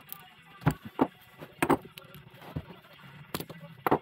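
Metal tools and compressor parts knocking and clinking during a teardown: about half a dozen sharp knocks at uneven intervals.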